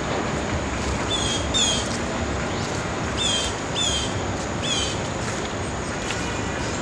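A bird calls five times, each a short high chirp sweeping down and ending on a brief level note, in two pairs and then a single. Behind it runs a steady rushing background noise.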